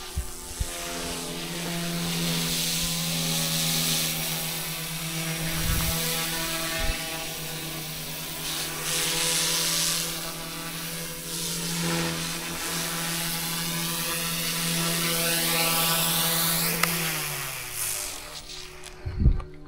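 Eachine E120S micro RC helicopter flying: its electric motor and spinning rotor blades give a steady whine over a rushing hiss. About seventeen seconds in the pitch falls away as the rotors spool down after it lands. A couple of thumps follow near the end.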